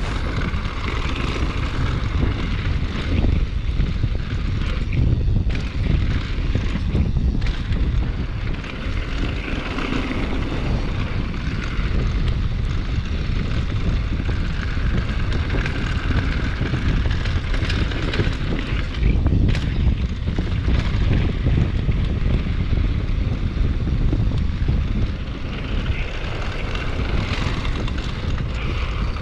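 Mountain bike ridden fast down a dirt downhill trail: a steady rumble of wind and tyres on dirt, broken by a few sharp knocks.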